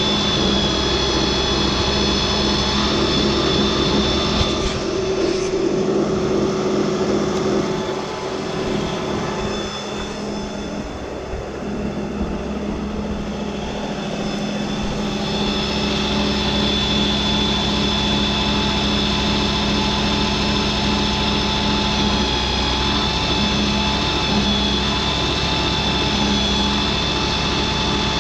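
A motor-driven pump runs steadily, pumping calcium chloride ballast into a tractor tire, with a constant low hum and a high whine. The sound eases for several seconds about a third of the way in, then comes back up.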